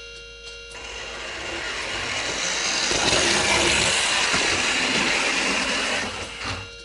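O-gauge model train running past over the track: its wheel and motor rumble builds for about two seconds, holds, then fades away near the end. The model level crossing's warning bell keeps ringing underneath.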